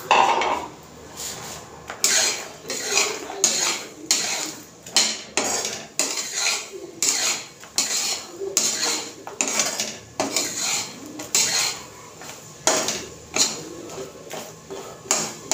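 Steel spatula scraping and clinking against a metal kadhai while stirring makhana (puffed fox nuts) to coat them in melted jaggery syrup. Repeated irregular strokes, about one or two a second.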